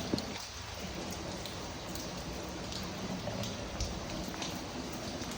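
Steady rain falling and pattering on surfaces, with scattered drops ticking close by. Two sharp knocks come right at the start.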